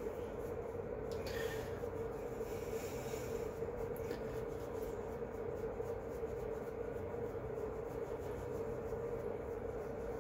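Soft rubbing of a makeup brush sweeping blush onto the cheek, a few faint strokes about a second in and again around three to four seconds, over a steady room hum.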